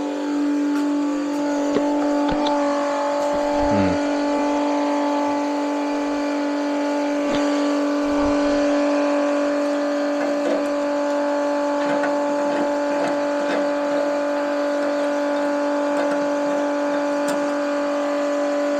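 A small electric motor running at a constant speed, a steady even hum, with a few faint clicks and knocks.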